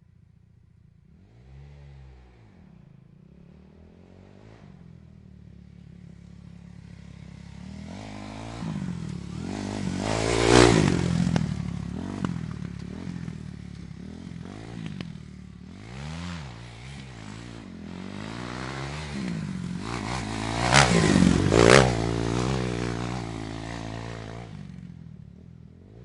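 Dirt bike engine passing by twice: it grows louder as it approaches, is loudest about ten seconds in and again around twenty-one seconds, and fades away between and after the passes.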